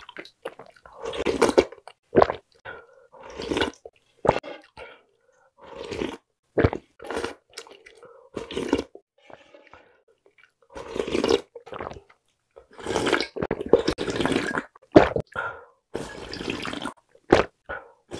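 Close-miked eating sounds: a plastic spoon clicking and scraping in a nearly empty pot, broth being slurped in short, irregular sips with swallowing between. Near the end the pot is tipped up to drink the last of the broth.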